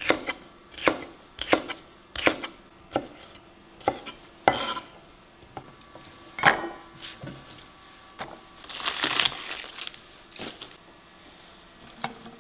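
Chef's knife slicing celery stalks on a wooden cutting board: separate sharp chops, roughly one every half second to a second, then a longer rustle about nine seconds in and one last knock near the end.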